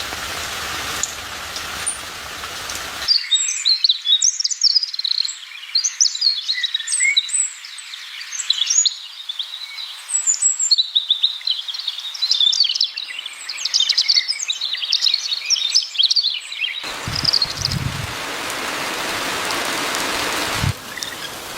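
Steady rain, giving way about three seconds in to small birds chirping and twittering rapidly and continuously. Rain comes back for the last few seconds, with a couple of low rumbles of thunder.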